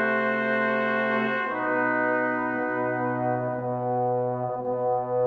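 Slow instrumental background music of long held chords, the chord changing about one and a half seconds in.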